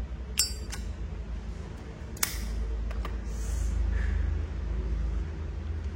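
Zippo lighter being used to light a cigarette: a ringing metallic clink of the lid flipping open, a sharp click about two seconds in, then a low steady rumble for a few seconds.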